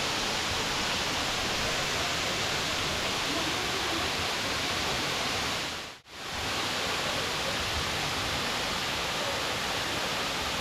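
Waterfall, Lower South Falls, with its steady, even rush of falling water. It fades out briefly about six seconds in, then comes back at the same level.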